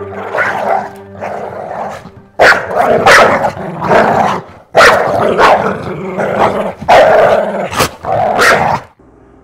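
A dog barking loudly and repeatedly, about eight barks starting a couple of seconds in and stopping shortly before the end.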